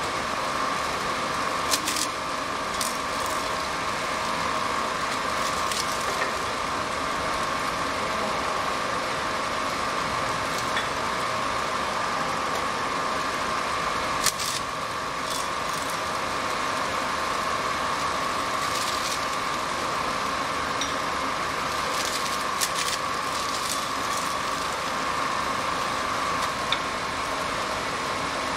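Automatic shrink-sleeve labeling machine running: a steady mechanical hum with a constant high whine, broken by irregular sharp clicks every few seconds.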